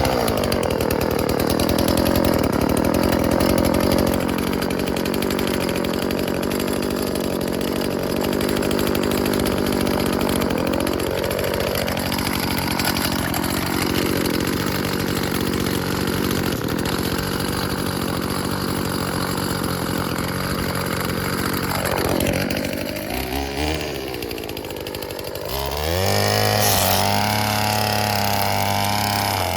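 Stihl FS36 string trimmer's two-stroke engine running and being revved, its pitch rising and falling with the throttle. About 22 seconds in it drops back to a lower, rougher speed, then near the end picks up again to a steady higher speed.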